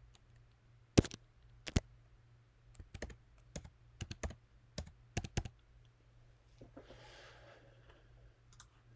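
Typing on a computer keyboard: a dozen or so separate key taps, the first two spaced out, then a quicker run, entering a short date. A soft hiss follows near the end.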